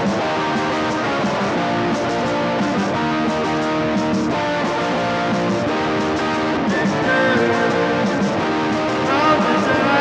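Electric guitar strumming sustained, ringing chords at a steady level.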